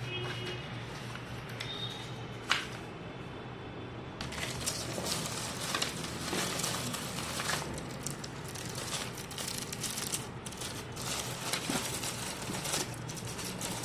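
Clear plastic wrappers on packaged stickers crinkling and rustling as a hand rummages through a box of them. The crinkling starts about four seconds in and keeps on as a dense crackle, after a single sharp click.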